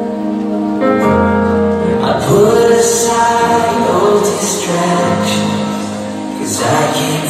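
Church worship music: instruments playing while voices sing.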